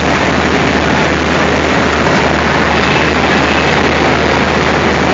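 Diesel locomotive engine running steadily at idle: a loud, even noise with a low hum underneath.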